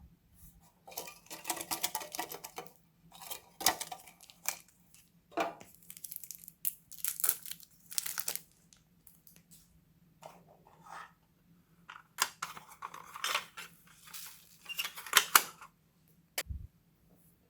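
Homemade slime being squished, stretched and mixed by hand, with irregular bursts of crackling and sticky popping and a few sharp clicks. A soft thump comes near the end.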